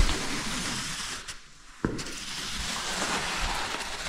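Rope and caving gear hissing and rubbing as a caver moves on rope in a narrow rock shaft. There is a short lull and a sharp click about two seconds in, then the hissing picks up again.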